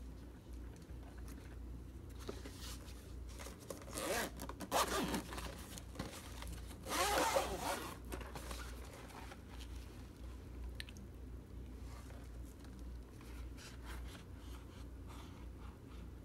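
A zipper pulled in two quick runs, about four and about seven seconds in, with light handling clicks and rustles between.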